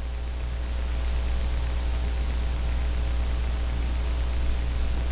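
Steady electrical hum with an even hiss from the sound system and recording chain, swelling slightly over the first second and then holding level.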